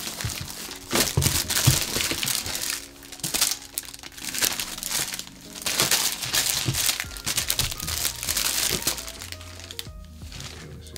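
Clear plastic polybag packaging crinkling and rustling in irregular bursts as bagged tablet cases are handled and opened, dying down near the end. Quiet background music underneath.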